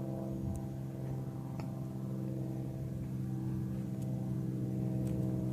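Steady low engine hum, an idling motor running evenly, with a few faint clicks over it.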